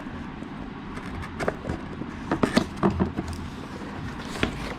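Packaging being opened and handled: rustling broken by a quick run of sharp clicks and knocks, over a low steady rumble.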